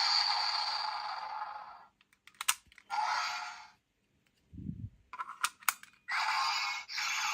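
Small built-in speaker of a toy transformation device playing electronic sound effects, thin and without bass, in several stretches. Between them come sharp plastic clicks of the toy being handled and its buttons pressed, and a short dull thump a little past halfway.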